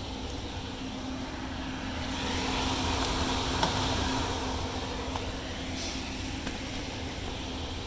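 A steady mechanical hum with a rushing noise that swells up for a few seconds in the middle and fades again, and a couple of light clicks.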